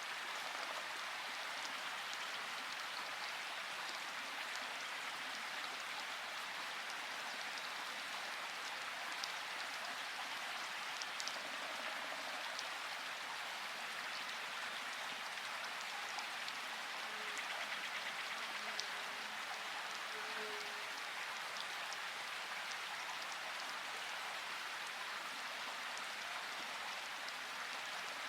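Steady rainfall: an even hiss of rain with a few sharper individual drop ticks scattered through it.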